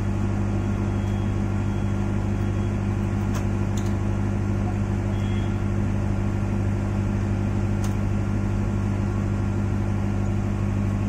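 A steady low hum, like a motor running, with a few faint clicks over it.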